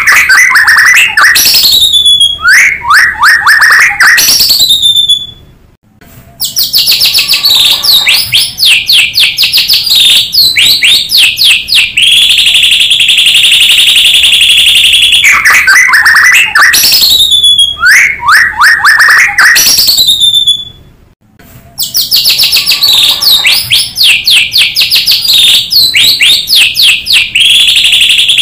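White-rumped shama singing loudly in fast runs of rising and falling whistles, mixed with long steady high notes. This is a lure recording of shama song, and it repeats after about fifteen seconds. There are two brief breaks, one about six seconds in and one about twenty-one seconds in.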